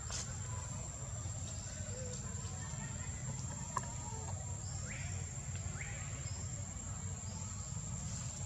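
Steady high-pitched insect drone over a low, even rumble. A few faint short rising chirps come in the second half, and a single small click falls just before the middle.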